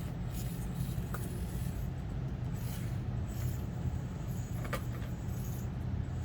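Axial SCX24 Deadbolt 1/24-scale micro crawler driving over an obstacle course: a steady low hum from its small electric motor and gears, with a few sharp clicks and knocks as it climbs, the clearest about a second in and near the end.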